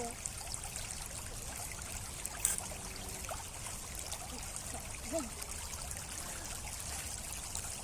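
Water trickling steadily, with one short sharp click about two and a half seconds in.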